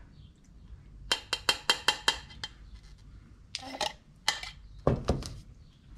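A metal stirring rod clinking against a tin of paint: about seven quick knocks in just over a second, then a couple of scraping strokes and a heavier knock near the end.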